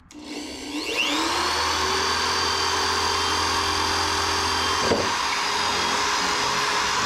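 Corded electric drill spinning up over the first second, then running at a steady speed as its bit bores into a 2-inch PVC pipe. There is one short knock about five seconds in.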